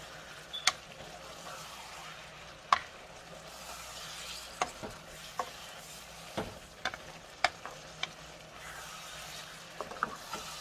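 A wooden spatula stirring shrimp and sausage in a hot skillet, with a steady low sizzle and about ten irregular sharp knocks of the spatula against the metal pan.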